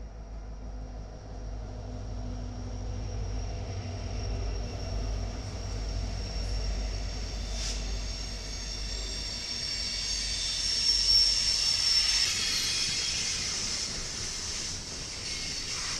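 Union Pacific freight train passing close by: the diesel locomotives' low rumble, then loaded coal hopper cars rolling past, their steel wheels on the rails giving a steady high hiss that is loudest about two-thirds in, while the rumble fades.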